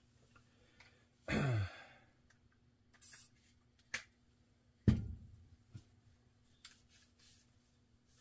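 A man's loud sigh, breathy and falling in pitch, about a second in. Then a short hiss around three seconds, a click, and a sharp knock near five seconds with a low ring after it, the loudest sound, as the rod is handled at the bench.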